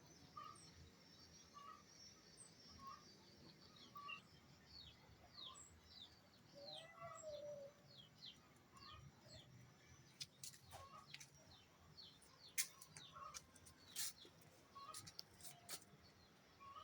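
Faint small birds chirping over and over in quick falling notes, with a short note repeated about once a second below them. From about ten seconds in, scattered sharp clicks or taps join in.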